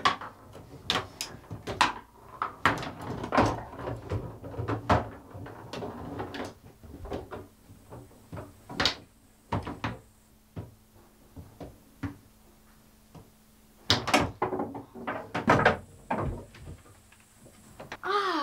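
Table football game: the ball being struck by the figures on the metal rods, with quick, irregular knocks and clacks. The hits stop for a few seconds past the middle, then come back as a fast flurry.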